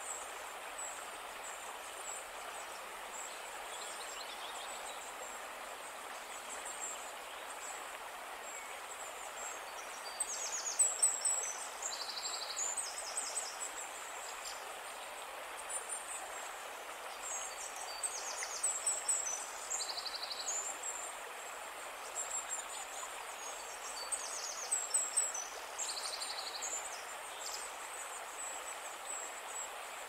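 A brook running steadily over rocks. Clusters of high, rapid chirping and trilling come in from about a third of the way through.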